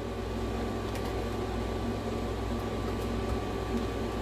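Steady low electrical hum and hiss of workbench room noise. The freshly plugged-in PlayStation 4 makes no start-up beep or fan spin-up, in keeping with a console that gets no power.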